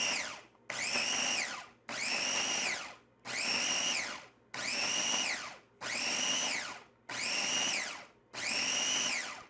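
Cuisinart mini food processor pulsing repeatedly, about one pulse every 1.3 seconds. The motor whines up to speed and winds down each time as the blade chops shredded mozzarella and almond flour into meal.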